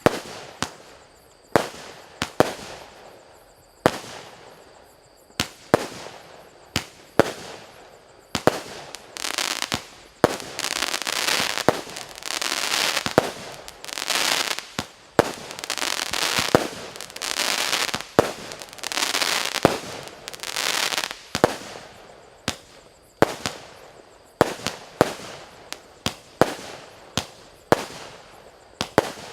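A 49-shot, 0.8-inch consumer firework cake firing its shots one after another, a sharp bang every half second to a second. From about a third of the way in until about two-thirds through, the bangs are joined by long stretches of hissing noise, then single bangs go on again.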